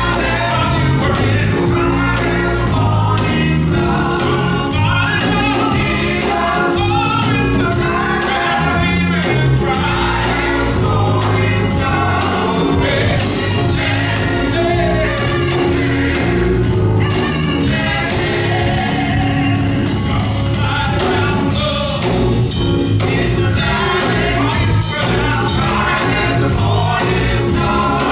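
Gospel choir singing with instrumental accompaniment and a steady beat.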